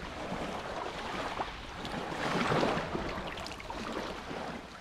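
Small waves washing on a pebbly shore, with water splashing as a scallop is rinsed by hand in the shallows; the wash swells louder about two seconds in.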